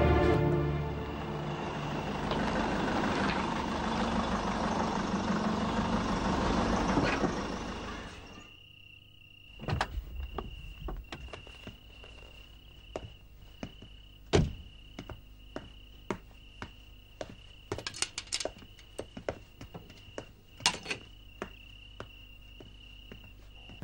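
Night ambience of crickets: a steady high trill that runs on with small breaks, with scattered sharp knocks and clicks, the loudest a little past halfway. Before it, for the first eight seconds or so, a dense rushing noise that cuts off abruptly.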